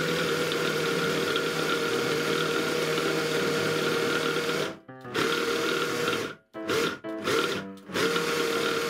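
Braun Multi-Quick 9 hand blender with its chopper bowl attachment mincing raw chicken breast: the motor runs with a steady whine for about five seconds, then is switched off and on in several short pulses.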